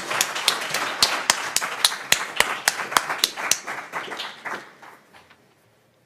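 Audience applauding, a dense run of claps that tails off and stops about five seconds in.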